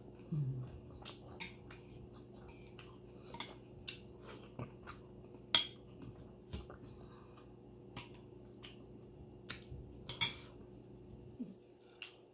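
Metal spoon and fork clinking and scraping against a ceramic plate during a meal of mussels and rice: a scatter of short sharp clinks, the loudest about halfway through.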